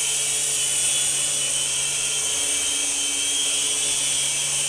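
Griffin Helo-TC toy RC helicopter in flight, its small electric motors and rotors making a steady whirring buzz with a high whine.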